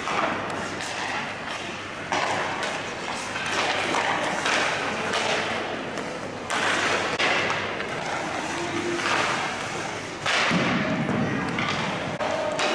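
Ice hockey drill sounds on a rink: skate blades scraping and carving on the ice, with sticks and pucks knocking and thudding.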